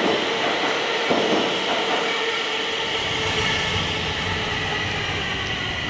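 Metro train running through an underground station: a steady rumble and hiss with a faint, even whine held underneath.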